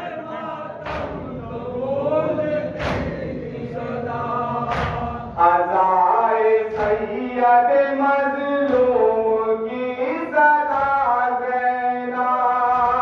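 Male voices chanting a nauha (Muharram lamentation) through a microphone, led by one reciter. Chest-beating (matam) strikes fall in time with it, about one every two seconds.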